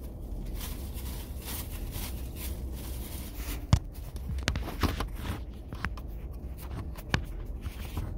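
Crunching and chewing of a crispy fried chicken sandwich, mixed with knocks and rubbing as the phone filming it is handled and shifted. The sharpest knock comes a little under four seconds in, over a steady low hum.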